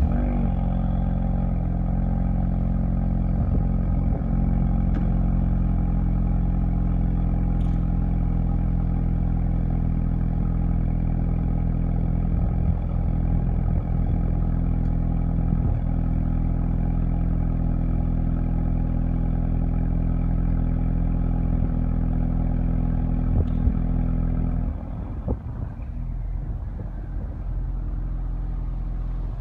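2015 Ford Mustang EcoBoost's 2.3-litre turbocharged four-cylinder engine starting abruptly and holding a steady, fairly high idle. About 25 seconds in, the idle drops to a lower, quieter level and stays there.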